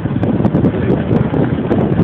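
Wind buffeting the microphone, a loud, steady rumbling rush with no clear rhythm.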